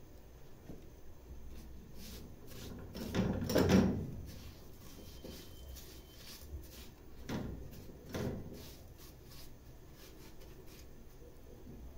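Silicone spatula stirring and scraping sugar and oil around a metal pot. The loudest scrape comes about three to four seconds in, with two shorter ones later.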